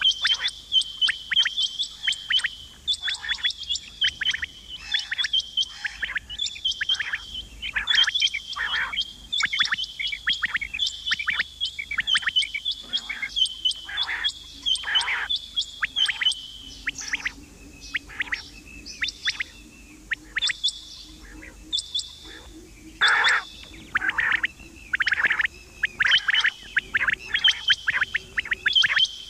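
Female quail calling: a rapid series of short, high chirping notes, several a second, that thin out for a few seconds midway. This is the kind of recorded call played to lure quail in for hunting.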